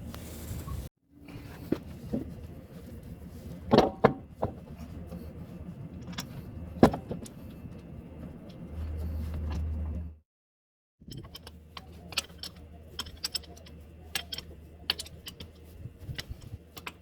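Sharp metallic clinks and knocks of tools and metal parts being handled, in short clips separated by abrupt cuts, with a brief low hum about nine seconds in.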